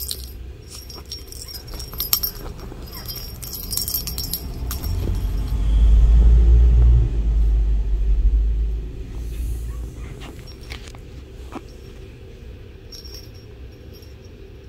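A small bell inside a red plastic ball toy jingles and rattles in quick clusters as a Shih Tzu puppy chews it, stopping about four seconds in. A loud low rumble follows for about four seconds, then only faint rustles and a few soft clicks.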